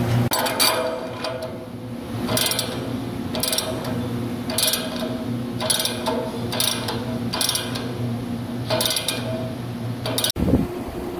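Ratcheting wrench tightening a clamp nut on a steel clamp bar, its pawl giving a short burst of clicks about once a second as the handle is swung back. A steady hum runs underneath.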